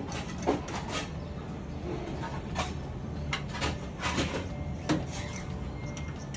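Hands handling a wall-mounted tankless gas water heater and its pipe valve: a series of sharp knocks and clicks, about eight in all, over a steady low hum.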